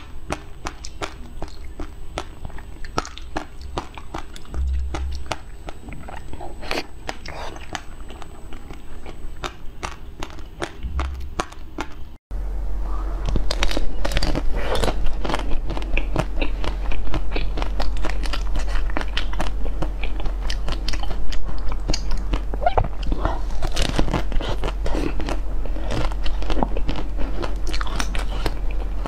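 Close-miked eating sounds: wet, dense clicking bites and chewing of a large yellow seed-studded jelly. They cut off suddenly and are followed by louder crunching bites and chewing of a green fruit-shaped treat, over a steady low hum.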